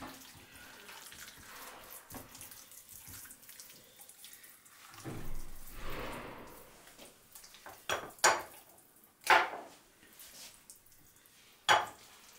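Wet squelching of hands working under the raw skin of a whole turkey, rubbing wine and spices into the meat. A soft wet rustle and a longer squish around the middle are followed by four short, sharp squelches in the second half.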